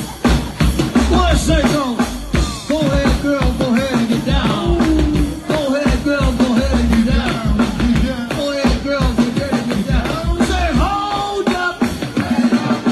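Live go-go band playing over a loud PA: drum kit and congas drive a steady syncopated beat, with voices singing over it.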